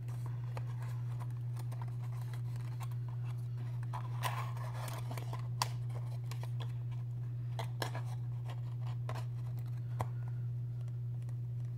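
Beauty products and their packaging being handled and rummaged in a box: soft rustling with a few sharp little clicks scattered through, over a steady low hum.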